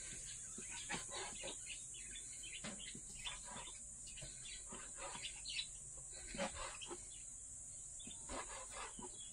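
A pet bird chirping in many short, scattered calls.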